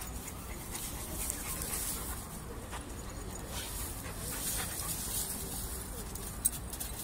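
Dogs panting and scuffling through a pile of straw, the straw rustling, with a couple of faint whines. A single sharp click comes near the end.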